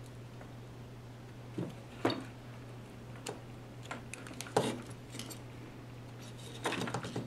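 Soldering iron tip and circuit board being worked at a solder joint: a handful of light metallic clicks and clinks, the sharpest about four and a half seconds in and a quick cluster near the end, over a steady low hum.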